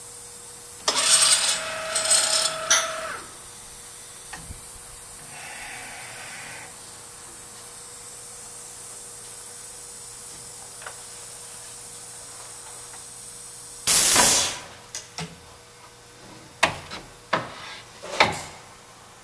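US Concepts CRD-300 automatic handrail drilling machine cycling its pneumatics over a steady faint hum. A loud rush of air and clatter comes about a second in, then a softer hiss. A sharp burst of air comes near the middle, followed by a few short knocks near the end, as the handrail blank is clamped and the drill head swings to the rake angle.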